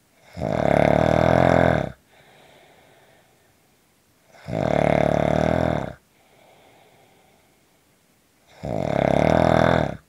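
Snoring: three loud snores about four seconds apart, each lasting about a second and a half, with faint breathing out between them.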